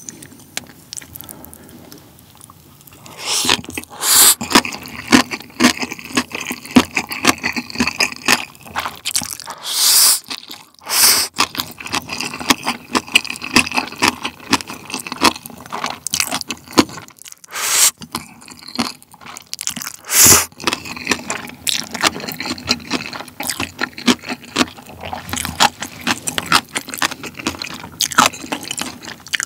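Close-miked eating sounds: jjapagetti noodles slurped, and pickled yellow radish (danmuji) crunched and chewed. Quieter for the first few seconds, then a dense run of chewing with several louder slurps.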